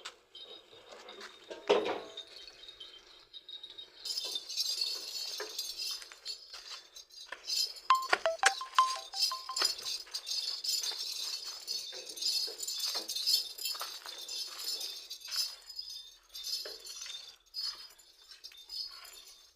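Small metal bells jingling and clinking in quick, irregular shakes. There is a louder clink about two seconds in and a cluster of louder hits near the middle.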